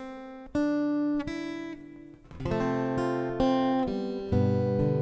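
Acoustic guitar played solo as the introduction to a hymn: a few single picked notes, then strummed chords from about two and a half seconds in.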